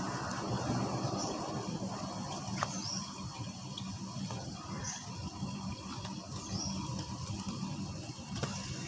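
Steady low background rumble with a short high chirp repeating every one to two seconds, and a couple of faint clicks.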